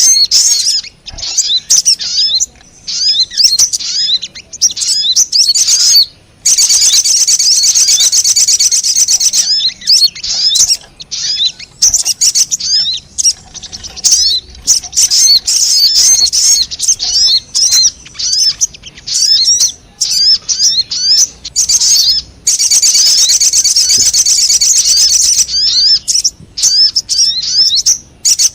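Little spiderhunter (sogon) calling in a lure recording: loud, rapid, high-pitched chirps and short rising notes in quick runs, broken twice by several seconds of dense, unbroken trilling, once about a quarter of the way in and again near the end.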